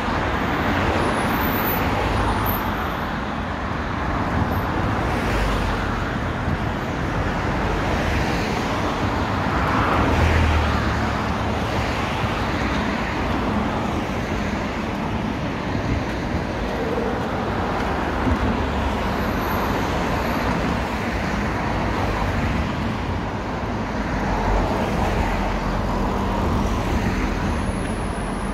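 Steady road traffic: cars passing in a continuous wash of tyre and engine noise, swelling briefly about ten seconds in and again later on.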